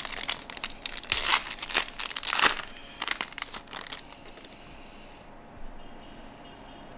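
Foil wrapper of an Upper Deck trading-card pack crinkling and crackling as it is torn open by hand, loudest in the first three seconds. After that the sound dies down to faint handling of the cards.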